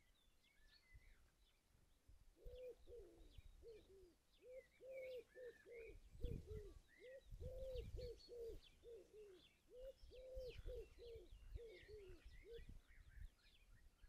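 Mallard giving a long run of soft, low quacks, about two a second, that stops a little before the end. Small birds chirp faintly in the background, with a few low thuds midway.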